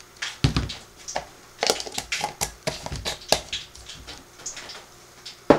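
Cornmeal being scooped and poured with a plastic measuring cup: a run of sharp clicks, knocks and scrapes of the cup against a glass jar and a stainless steel bowl. There is a dull thump about half a second in and a sharp click near the end.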